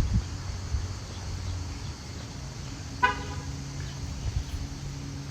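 A low, steady motor hum with a short car-horn toot about three seconds in.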